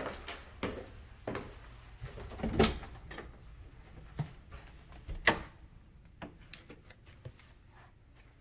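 Footsteps climbing stairs at an even pace, then the clicks and knocks of an interior door being opened and pushed, the two loudest knocks a little under three seconds apart, followed by softer steps and small clicks.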